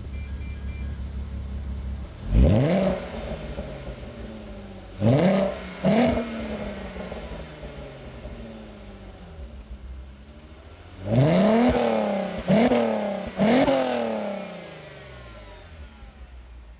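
Volkswagen Golf R32 (Mk5) 3.2-litre VR6 idling at the twin tailpipes and blipped six times: once about two seconds in, twice around the middle, then three in quick succession near the end. Each rev climbs sharply and falls back to idle.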